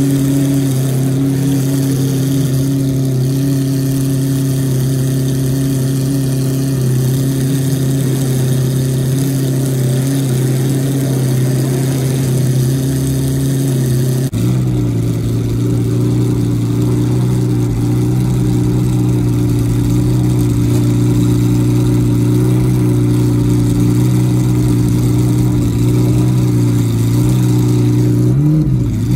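McLaren F1 GTR's BMW V12 idling steadily. About halfway through the idle drops abruptly to a slightly lower, steady speed, and just at the end the revs start to rise and fall.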